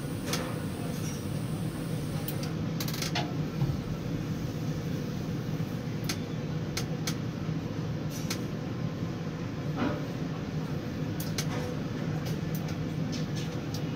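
Steady low machinery hum inside a tower crane's cab as it holds a hanging precast concrete panel, with scattered short sharp clicks and ticks.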